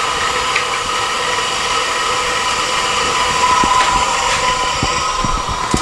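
Neon glass-bending burner with its air blower running: a steady rushing hiss with a hum in it. A few light knocks come in the second half.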